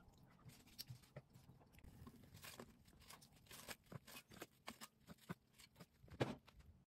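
Faint, scattered clicks and taps of kitchen utensils handling food, with a louder knock about six seconds in.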